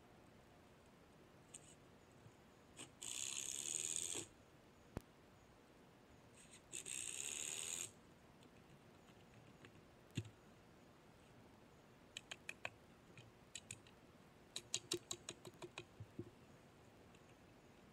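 Cordless drill driving screws into wood in two runs of about a second each, a few seconds apart, followed by a series of quick hammer strikes in bursts.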